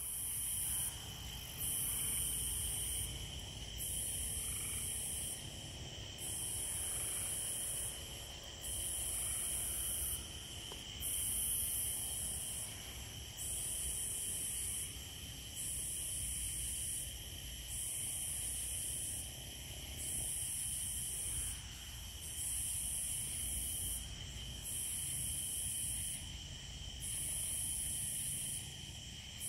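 Night insect chorus: a steady high trill, with a louder, higher insect call swelling and stopping about every two and a half seconds.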